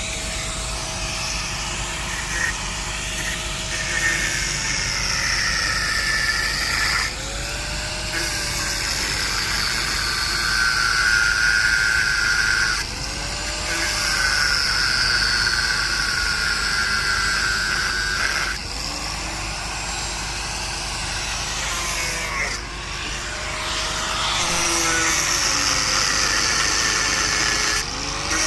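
Angle grinder cutting through the seized, rusted bolts of a fire hydrant valve. Its high whine sags and recovers as it bites into the metal, with short breaks about every five or six seconds.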